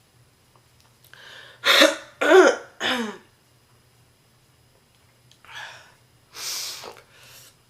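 A woman with a heavy smoker's cough, sick: a breath in, then three hard, deep coughs in quick succession. A few heavy breaths follow near the end.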